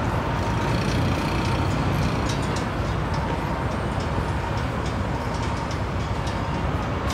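Steady urban traffic noise: a continuous low rumble of vehicles on a street.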